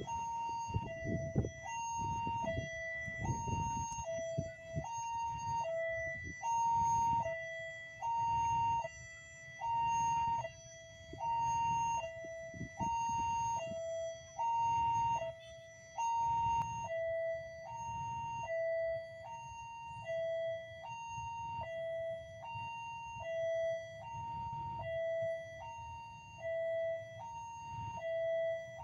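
Electronic level-crossing warning alarm sounding a two-tone signal, a high and a low tone alternating about every half second. A low rumble runs underneath in the first half.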